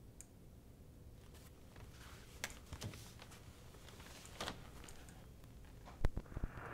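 Faint rustling and small handling noises as paper and small objects are moved about, then a few sharp clicks or knocks near the end.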